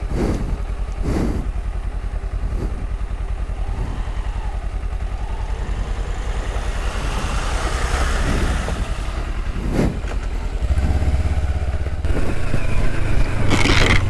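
Motorcycle engines running, with a steady pulsing low note, while a Hero XPulse dual-sport bike splashes through a shallow stream in the middle of the clip. About three-quarters of the way through, the engine note gets louder and steadier as the ride goes on along a dirt track.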